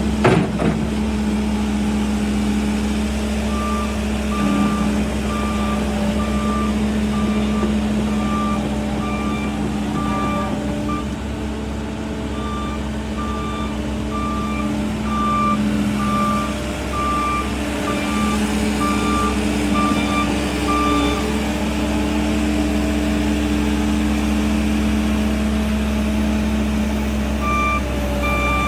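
Cat 308 excavator's diesel engine running steadily while its travel alarm beeps over and over as the machine tracks. The beeping stops about three quarters of the way through and starts again near the end, and there is a sharp knock just after the start.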